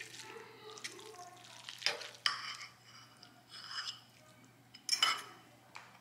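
Metal fork stirring and scraping fettuccine around a bowl, with a few sharper clinks of the fork against the bowl, the loudest about five seconds in.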